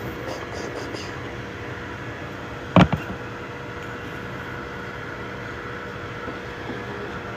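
Steady hum of running 3D printers, their fans and motors, with one sharp knock about three seconds in.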